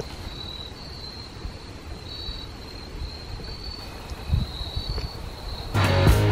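Crickets chirping steadily in the woods, a high trill in short repeated stretches, with a low thump about four seconds in. Near the end, rock music with drums cuts in abruptly and drowns them out.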